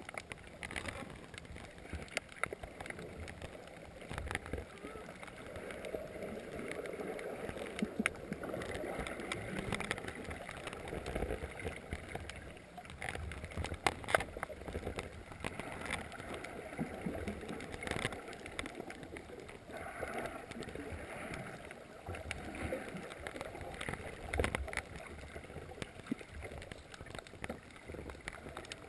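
Underwater reef ambience heard through a GoPro's waterproof housing: a muffled, steady wash of moving water with scattered sharp clicks and crackles, swelling louder now and then.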